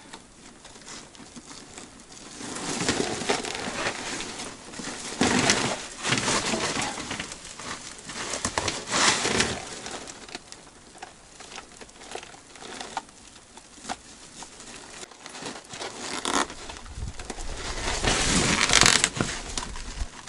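Irregular crunching and rustling, in bursts of a second or two with quieter gaps between them, loudest near the end.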